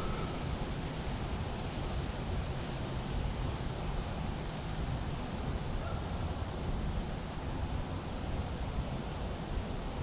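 Steady outdoor background noise: an even rushing hiss, heaviest in the low end, with no distinct events.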